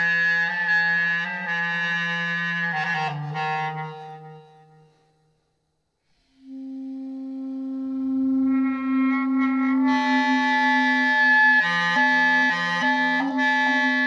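Clarinet playing long held notes, with a low tone and a high tone sounding together, layered through a Boss RC-505 loop station. The notes break up, fade out and stop about five seconds in. After a second of silence, a new low held note comes in and more tones stack on top of it, growing fuller from about ten seconds in.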